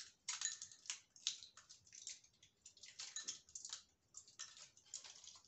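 Tablets being pushed out of a foil blister pack, the foil crackling and popping in a quick, irregular run of small clicks.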